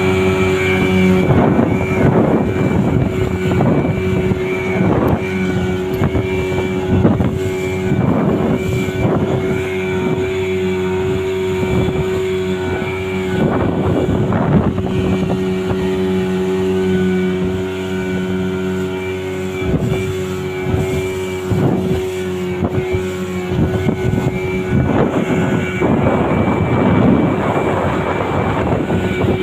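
A RIB's engine running steadily at cruising speed, holding one even pitch. Recurring rushes of water and wind noise surge over it every second or two as the hull runs across the sea.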